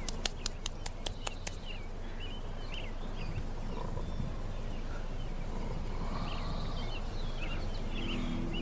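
Outdoor ambience of small birds chirping over a low steady rumble, with a quick run of sharp clicks in the first second and a half. Low music notes come in near the end.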